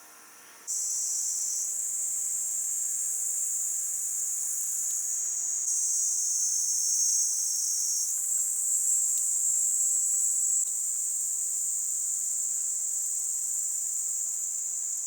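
Insects chirring in a dense, steady, high-pitched chorus, starting abruptly under a second in, with a few sudden shifts in pitch and level.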